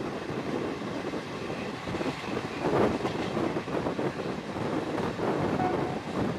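Regional passenger train running on the rails, its wheels clattering unevenly over rail joints and switches, heard from an open window of the moving carriage. There is a louder burst of clatter about three seconds in.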